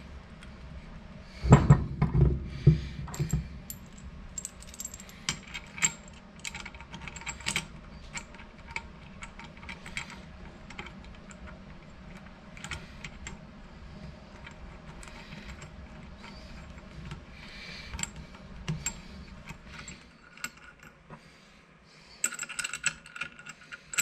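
Metal parts of a K24 turbocharger clinking and knocking as they are handled and fitted together on a wooden workbench: a cluster of heavy knocks about a second and a half in, scattered light clicks after, and a run of rapid metallic clicking near the end.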